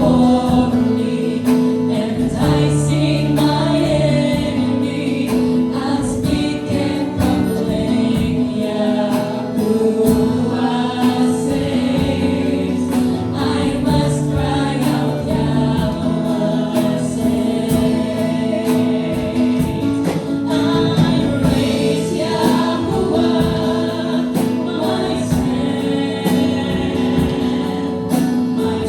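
Worship team singing a gospel praise song together, in choir-like voices over instrumental backing with a steady beat.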